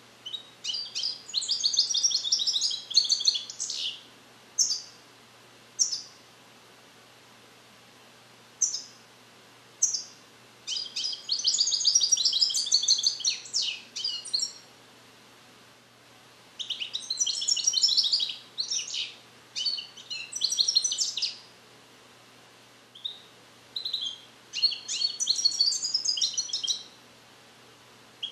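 Captive-bred male European goldfinch, song-trained in the Neapolitan 'passata' style, singing. There are four bursts of rapid, high twittering song, each a few seconds long, with short single notes between them. He is still working up his passages, and the song is not yet complete.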